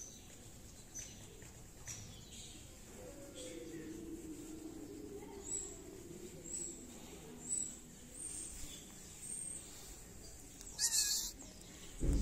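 Cats meowing: a few faint short calls, then one louder call near the end.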